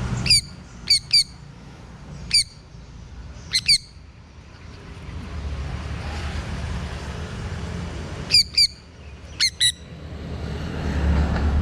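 Sun conure giving short, shrill squawks, about ten in all, mostly in quick pairs, in two bunches with a pause of about four seconds between them. A low traffic rumble runs underneath and swells near the end.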